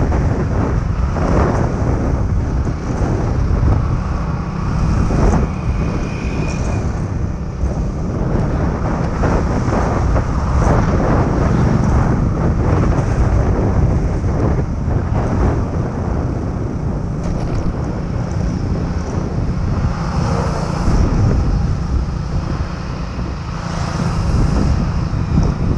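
Steady wind rumble buffeting the microphone of a camera riding on a moving scooter, with engine and road noise underneath.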